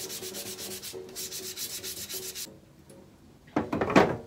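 Ceramic water-filter candle scrubbed with a scouring pad: rapid, even back-and-forth strokes, about eight a second, rubbing the grime off the ceramic. The scrubbing stops about halfway through, and a short louder sound follows near the end.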